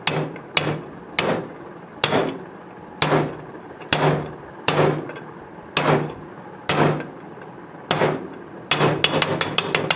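Hammer blows on a steel drift pin (an old CG125 connecting-rod crank pin) driving a 6203 ball bearing into its bore in an aluminium motorcycle engine case half. There are about ten evenly spaced blows roughly a second apart, each with a short ring, then a quick run of taps near the end as the bearing seats.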